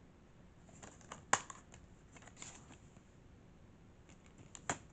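Plastic DVD case being handled and snapped open: a few sharp clicks, the loudest about a second in, and two more near the end.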